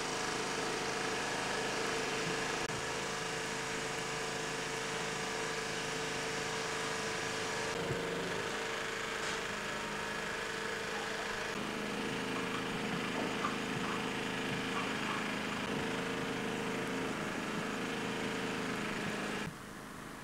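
Steady mechanical hum made of several held tones, like an engine running at idle. The tone pattern shifts about eight and twelve seconds in, and the hum drops off sharply just before the end.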